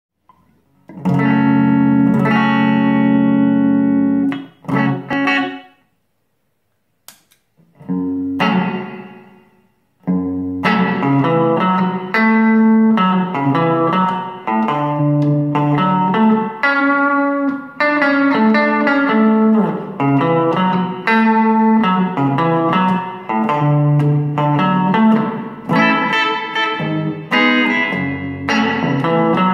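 Electric guitar played through a Mooer Shimverb reverb pedal into a Roland CUBE Street amp. A strummed chord rings for about three seconds, followed by a few short notes and a short click in a pause, then a second chord dies away. From about a third of the way in comes a steady run of picked single notes and arpeggios, with the pedal's blue light on, showing the reverb switched in.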